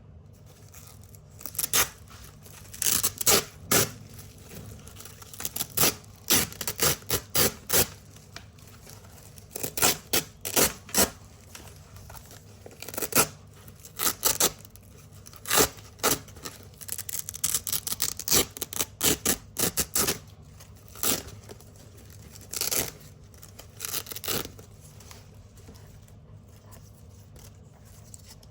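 Velcro hook-and-loop strips ripped off a big black Velcro roll in many short, crunchy tears, often in quick clusters of several rips.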